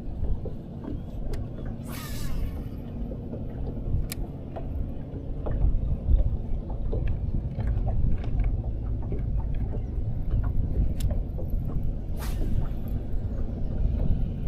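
Low, unsteady rumble of a boat's motor running on the water, with a faint steady hum in the first few seconds. Two brief hisses come about two seconds in and again near the end.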